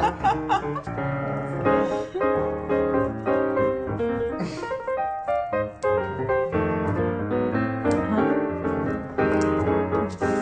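Background piano music: a brisk run of notes.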